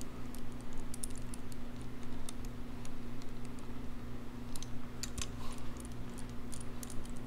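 Irregular light metallic clicks and ticks as small bolts are started by hand into a Harley-Davidson Sportster rocker box, over a steady low hum.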